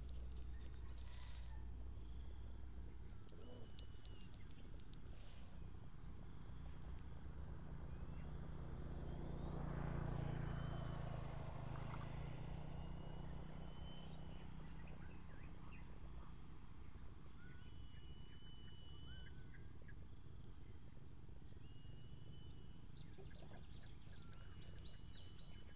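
Outdoor evening ambience at a pond: a steady low background hum with short, even-pitched animal calls every few seconds. Two brief high hisses come in the first few seconds, and a broad swell of noise rises and fades about ten seconds in.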